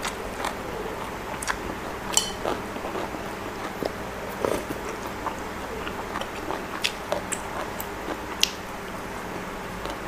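A person eating close to the microphone: chewing and biting spicy pork salad and raw greens, with wet mouth clicks and irregular crisp crunches, the sharpest about two seconds in and near the end.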